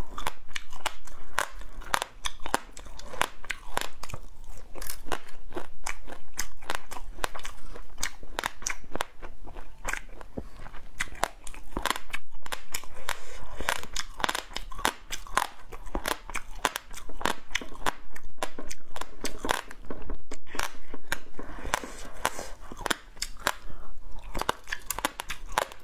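Close-up crunching and chewing of crispy fried insect pupae, a dense run of sharp, irregular crunches and mouth clicks.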